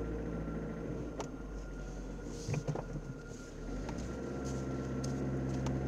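Car engine running at low revs, heard from inside the cabin as a steady low hum, with a few faint light clicks. The hum firms up about four seconds in as the car moves off slowly.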